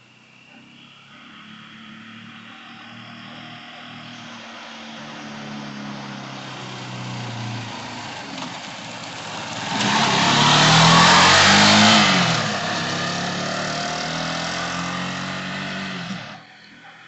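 GM Sportbike R 250 motorcycle engine running and getting steadily louder, loudest for about two seconds in the middle with the revs rising and falling, then running steadily until it cuts off suddenly near the end.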